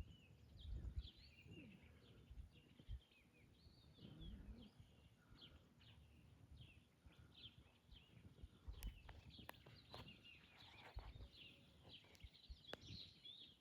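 Faint chorus of birds calling, with many short chirps and twitters overlapping one another, over a low, uneven rumble.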